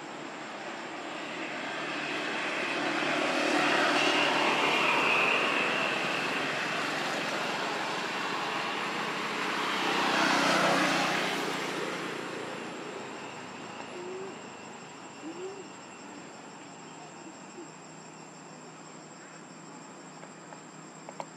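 Motor vehicles passing by, the engine and tyre noise swelling and fading twice, loudest about four seconds and ten seconds in, before settling to a steady background hum.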